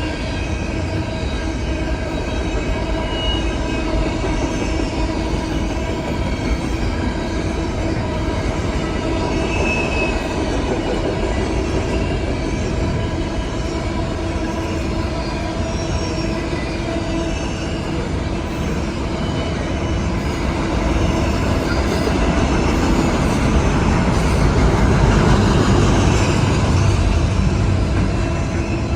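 A long intermodal freight train's cars rolling past: a continuous steel-wheel rumble with faint steady wheel squeal. It grows louder for several seconds toward the end.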